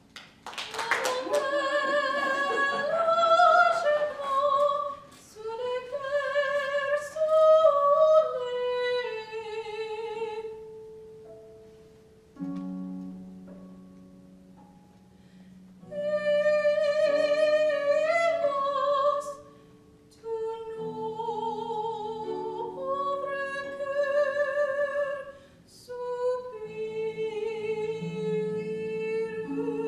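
Mezzo-soprano singing in long phrases with vibrato, accompanied by harp. About halfway through, the harp plays alone for a few seconds between vocal phrases.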